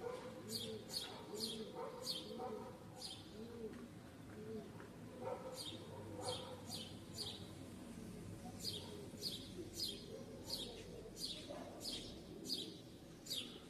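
Birds singing: a bird gives runs of sharp, high chirps that sweep downward, about two a second, in three bursts. Lower, rising-and-falling notes repeat underneath.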